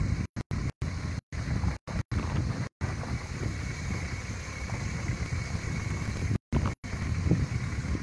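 Wind rumbling and buffeting on a phone's microphone, a steady low rush. The audio cuts out completely for brief moments, several times in the first three seconds and twice more near the end.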